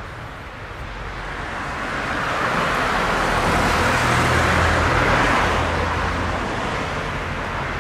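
A motor vehicle drives past on the road. Its tyre and engine noise swells over the first few seconds, peaks around the middle with a low engine hum, and then fades away.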